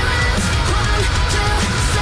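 Heavy rock song playing loudly and steadily, led by electric guitar.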